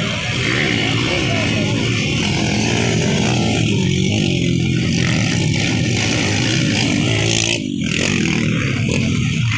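Motocross motorcycle engines revving as the bikes race round the track, the pitch rising and falling with each change of throttle.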